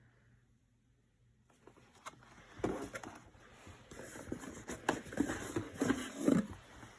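Packaging and small plastic figurines being handled: rustling with many small clicks and taps, starting about two and a half seconds in and fading near the end.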